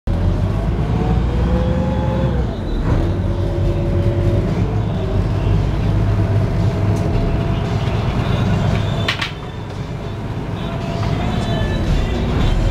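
Shuttle boat's engine running under way, heard from inside the cabin: a steady low drone whose pitch rises and falls with the throttle. About nine seconds in there is one sharp knock, after which the engine is quieter for a couple of seconds before picking up again.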